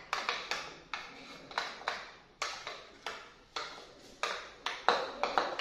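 Metal spoon stirring thick green chutney in a small ceramic bowl, clinking and scraping against the bowl in short, irregular taps about three a second, as lemon juice is mixed in.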